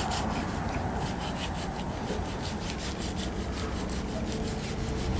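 Large knife sawing through meat on a pig carcass, rapid back-and-forth strokes rasping against flesh and bone.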